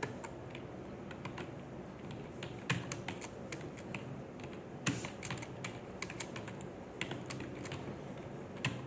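Typing on a computer keyboard at a slow, uneven pace: keys clicking irregularly, with a few louder strokes.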